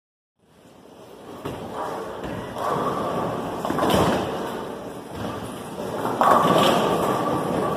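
Bowling ball thudding onto the lane and rolling, then pins crashing a couple of seconds later, over the steady clatter of a bowling alley.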